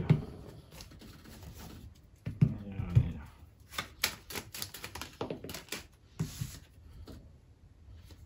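Tarot cards being shuffled and handled: a run of quick irregular clicks and taps, with a few low thumps in the first three seconds.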